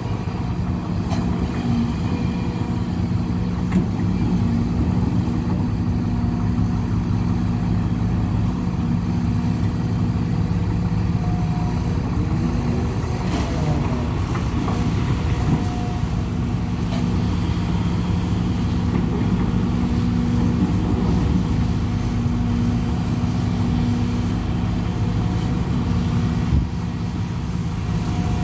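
Hidromek HMK230 crawler excavator working: a steady diesel engine drone with a brief rise and fall in pitch about halfway through as it swings and digs. Bucketloads of soil drop into a steel dump truck bed, with a sharp knock near the start and another near the end.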